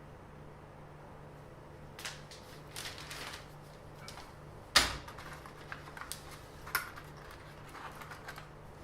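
Scattered light clicks and knocks of small objects being handled, the sharpest about five seconds in, over a faint steady hum.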